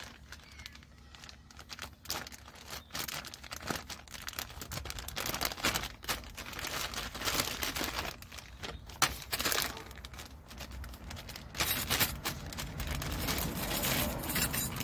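Packaging crinkling and tearing in irregular bursts as new brake slider clips are unwrapped.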